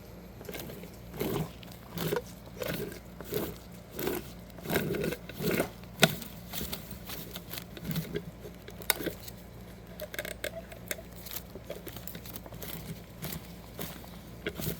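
Failing original alternator from a Lexus GS400 with over 300,000 miles making a rough, scraping rattle in short repeated bursts, about one every 0.7 s for the first six seconds. There is a sharp click about six seconds in, then smaller scattered clicks over a faint steady hum.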